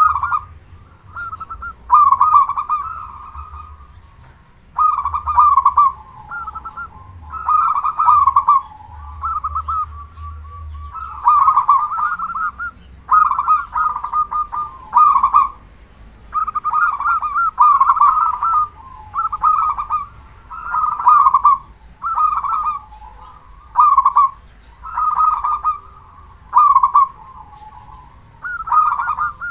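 Local zebra dove (perkutut) with a big voice singing its cooing song: short rolling coo phrases, each about a second long, repeated every second or two with brief pauses.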